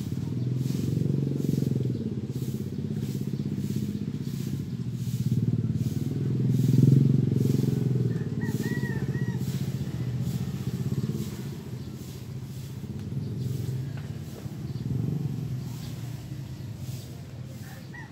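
Motorcycle engine running, growing louder to a peak about seven seconds in, then fading, with a smaller swell near the end.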